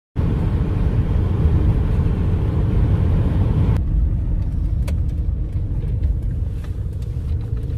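In-cab noise of a van driving: steady engine and road rumble with tyre hiss at motorway speed. About four seconds in it cuts suddenly to a quieter low rumble at slow speed, with a few light clicks.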